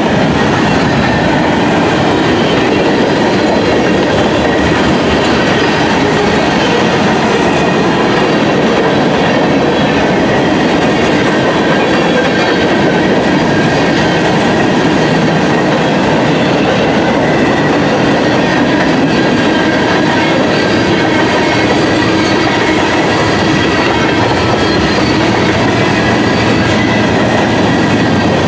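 Norfolk Southern freight train's cars rolling past on the rails: a loud, steady rumble of wheels on track that carries on unbroken.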